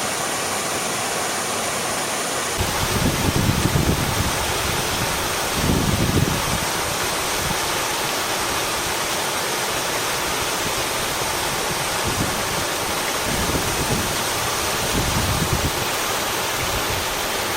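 Waterfall: a steady, dense rush of falling water, with brief low rumbling surges a few seconds in and again past the middle.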